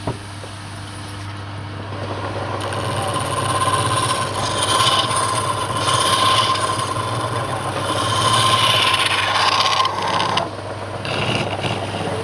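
Wood lathe motor running steadily while a turning tool cuts into the spinning wood. The cutting builds over the first few seconds, holds until about ten seconds in, then comes back in shorter, weaker spells.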